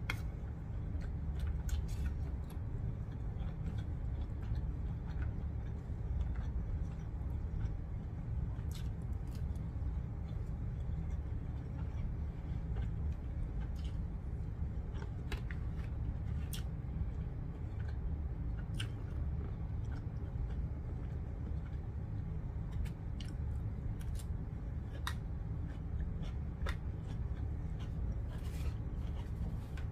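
Person eating: chewing and mouth sounds with scattered sharp clicks of a plastic fork against a foil tray, over a steady low hum.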